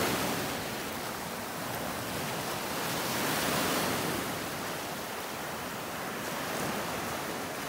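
Sea waves washing onto a rocky shore: a steady surf noise that swells about three to four seconds in and then eases.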